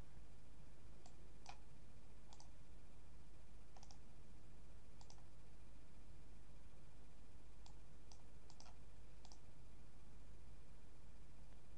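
Faint computer mouse button clicks, about ten, scattered with a quicker run of several near the end, over a steady low electrical hum.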